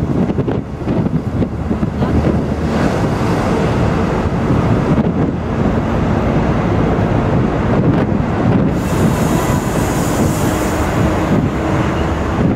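Wind rushing over the microphone on the open top deck of a moving tour bus, over the low rumble of the bus and street traffic. A brighter hiss rises about nine seconds in and fades a couple of seconds later.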